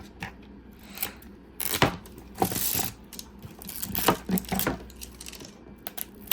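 Hands opening toy packaging: scattered clicks and taps of plastic and cardboard, with a stretch of rustling or tearing a little over two seconds in.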